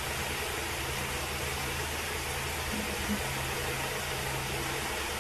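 Steady background hiss with a low hum underneath, and a faint short blip about three seconds in.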